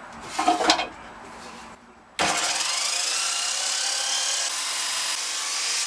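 Abrasive chop saw cutting steel stock: a short clatter of metal being handled about half a second in, then about two seconds in the saw starts abruptly and grinds steadily through the steel, its whine slowly falling in pitch as the wheel bites.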